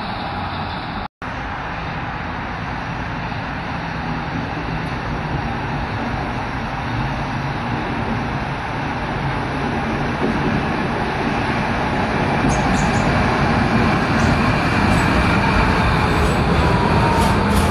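Electric tram approaching and drawing up alongside a platform, its running noise growing steadily louder over a background of road traffic. Near the end a falling whine as it slows to a stop.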